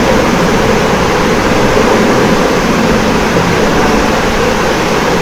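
Loud, steady rushing noise with a low rumble that holds level throughout, with no distinct tones or events.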